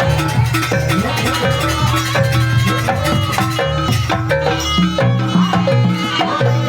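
Live Javanese jaranan gamelan ensemble playing at a steady, fairly quick beat: repeated struck metal notes over drums and deep gong tones.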